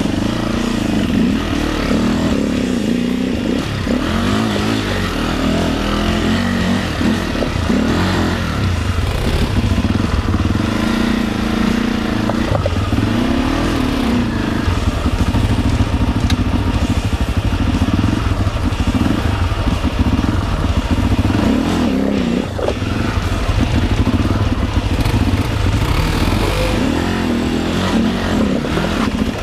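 Enduro motorcycle engine revving hard, its pitch rising and falling over and over under heavy load on a rocky climb.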